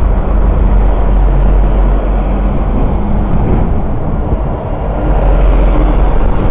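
Heavy lorries driving past close by on the street, one after another, their diesel engines and tyres making a loud low rumble that swells again as a semi-trailer passes right alongside near the end.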